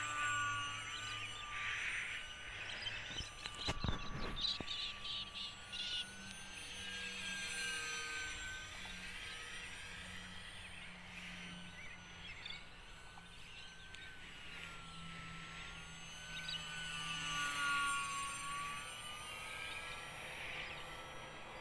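Electric motor and propeller of a UMX Cessna 182 micro RC plane whining in flight, the pitch slowly wavering up and down as it banks, passes and changes throttle. A brief burst of noise comes about four seconds in.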